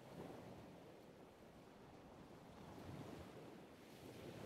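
Faint ocean-surf ambience: a soft, steady rush of waves with gentle swells.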